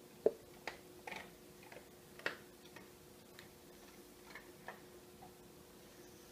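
Faint, irregular light clicks and scratches of a pencil and a plastic yogurt container against a painted fake-wood bookcase panel as scale arcs are traced. The sharpest click comes about a quarter second in, another just after two seconds.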